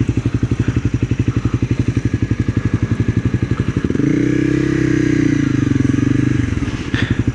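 Sport motorcycle engine running at low revs with an even, fast pulsing beat while riding slowly. About four seconds in, the revs rise briefly and then fall back.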